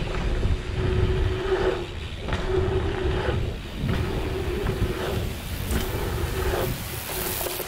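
Mountain bike rolling along a packed-dirt trail: tyre noise and wind rumble on the camera's microphone, with a steady hum that breaks off and comes back several times.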